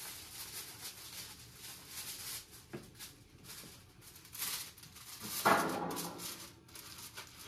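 Handling noise of a foil-covered baking pan being slid onto a wire oven rack: scattered rustling and light knocks, loudest where the pan meets the rack about five and a half seconds in.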